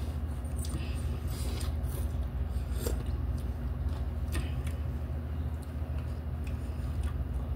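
Eating sounds: noodles being slurped and chewed, with a fork and chopsticks clicking and scraping in instant-noodle cups, a few sharp slurps or clicks standing out. A steady low hum runs underneath.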